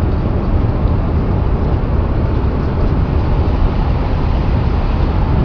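Wind of a tornado passing through: a loud, steady rush of noise, deepest in the low end, that sounds like a freight train.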